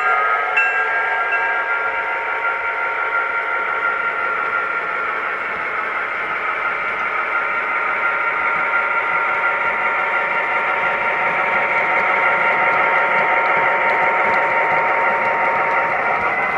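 MTH S scale C&O diesel locomotive's onboard sound system playing a steady diesel engine running sound through its small speaker as the train moves, mixed with the model's wheel and motor noise.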